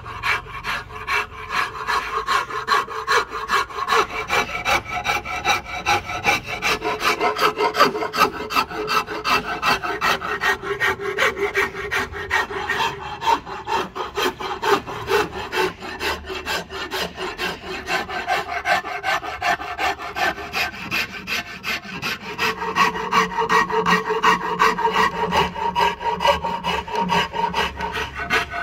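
A hand tool cutting and shaping a rosewood handle with rapid, rhythmic back-and-forth strokes, about three or four a second, each stroke a rasping scrape on the wood.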